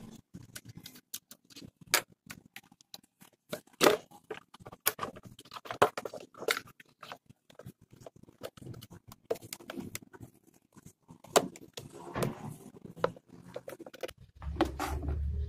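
Scattered plastic clicks, knocks and rustles from hands opening a Maruti Suzuki Wagon R's air filter box and handling the pleated paper air filter element. A short low hum comes in near the end.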